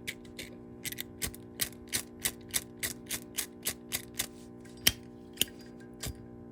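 A Zippo lighter being worked: a quick run of small metallic clicks, about three a second, then a few louder single clicks near the end.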